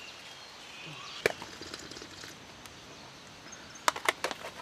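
Quiet outdoor campsite ambience with a steady background hiss. A single sharp click comes about a second in, and a quick run of three or four clicks comes near the end.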